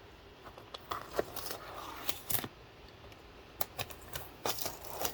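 A box being cut open and handled: irregular sharp clicks, short scrapes and rustling.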